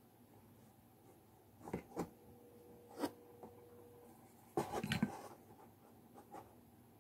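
Card-paper pieces handled and rubbed as they are pressed together, with a few light taps about two and three seconds in. A short burst of clatter and rustling comes a little past the middle, as a hot glue gun is picked up.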